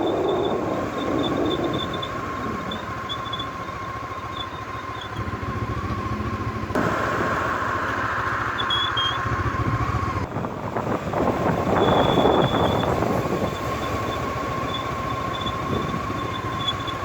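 Motorcycle front disc brake squealing with a steady high-pitched tone as the bike brakes and slows nearly to a stop, over road and wind noise, in several short clips one after another. The squeal comes from newly replaced brake pads and appears only at low speed.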